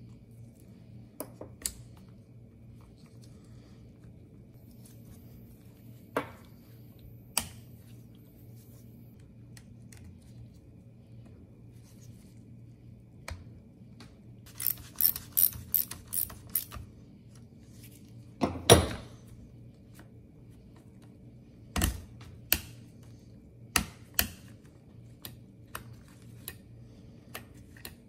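Scattered clicks and knocks of small plastic and metal chainsaw parts being handled and snapped together as a carburetor and its throttle linkage are refitted. There is a quick run of about eight clicks around the middle and a louder knock a few seconds later, over a steady low hum.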